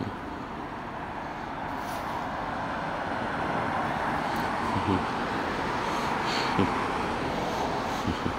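Road traffic noise: a vehicle running along the street, its steady tyre-and-engine rush slowly growing louder, with a few soft thumps.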